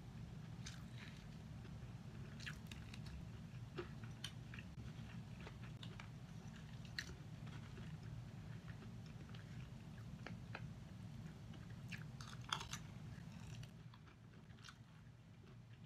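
Jollibee Chickenjoy crispy fried chicken being pulled apart by hand and chewed: scattered small crunches and clicks, with a louder cluster near the end, over a steady low hum.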